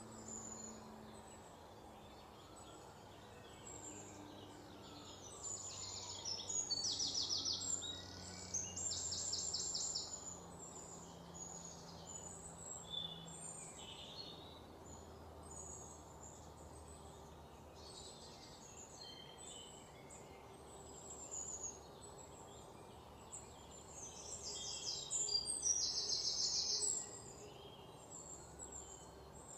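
Birds chirping throughout, with two louder runs of rapid trills, one about six to ten seconds in and one about twenty-four seconds in, over a faint steady hum.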